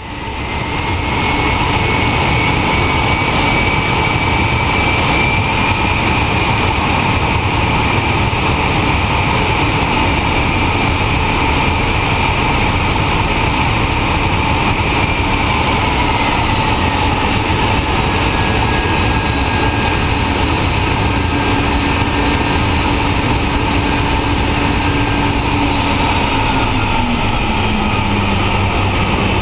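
Antonov An-225 Mriya's Progress D-18T turbofan engines running steadily at low power: a constant rush with thin high whining tones over it. A lower whine drops in pitch near the end.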